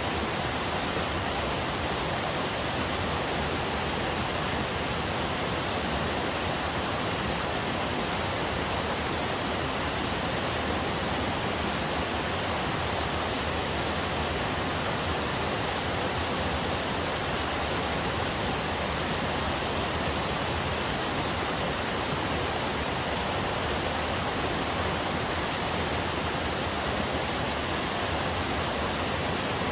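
Small waterfall on a forest river, water falling and rushing in a steady, even hiss.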